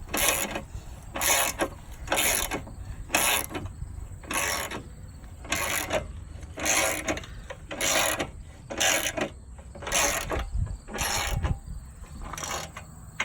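Hand ratchet wrench clicking in a dozen or so short strokes, about one a second, as fasteners are turned out.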